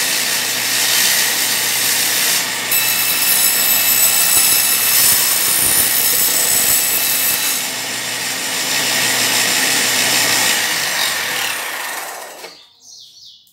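An electric saw runs steadily while cutting thin wooden strips for birdcage arches. It dies away and stops about twelve seconds in, with the cuts finished.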